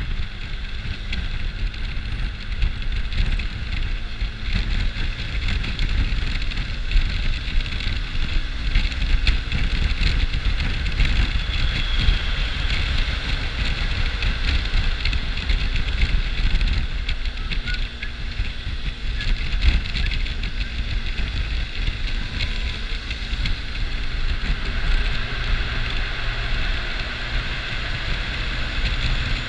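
Riding noise from a Honda Dio scooter in traffic: steady wind rumble buffeting the helmet-mounted camera's microphone, with the scooter's engine and passing traffic running underneath.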